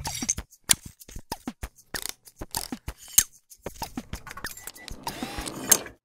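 Mechanical click sound effects: an irregular string of sharp clicks and clinks, some with short falling tones, pausing briefly a little past halfway and ending with a louder click.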